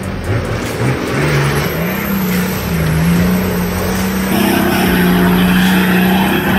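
Nissan Patrol 4WD engine revving under load as it drives through a mud hole, its pitch climbing and then held steady. Mud and water spray off the tyres, louder in the second half.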